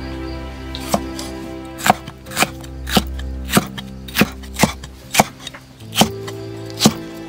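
Cleaver chopping red bell pepper on a thick wooden chopping block: about ten sharp knocks, one or two a second, starting about a second in.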